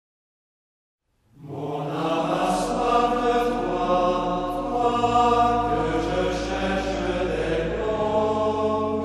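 Background music starting about a second in after silence: sustained held notes over a low drone, shifting chord a couple of times.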